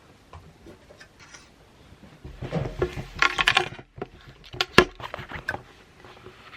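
Kitchenware being handled: a run of scraping and clicking from a utensil against dishes or a jar, a short pause, then more clatter with one sharp clink about five seconds in.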